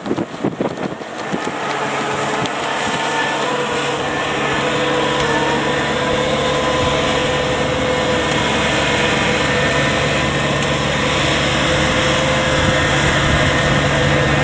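Kubota rice combine harvester's diesel engine running steadily as the machine crawls on its tracks through deep mud, its hum growing slowly louder as it comes closer. A few brief knocks sound in the first second or so.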